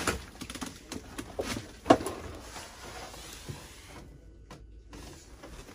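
Scattered knocks, clicks and rustles of someone searching around an old bedroom closet, with one sharper knock about two seconds in.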